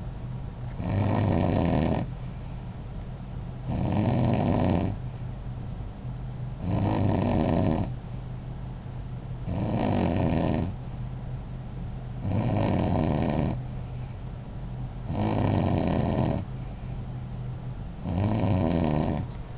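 A man snoring loudly in deep sleep: seven long rasping snores, each lasting about a second and coming about every three seconds.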